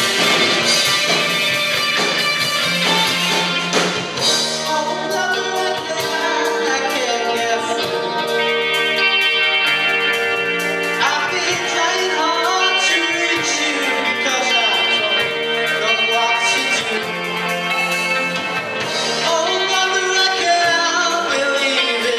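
Live rock band playing: electric guitars, bass guitar and drums, with a male lead singer singing over them through the PA.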